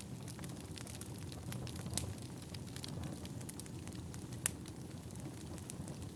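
Firewood burning: a steady low rumble with scattered crackles and one sharp pop about four and a half seconds in.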